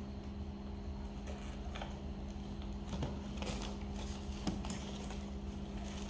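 Faint cardboard rustles and taps as a small child handles and opens a biscuit box, over a steady low hum.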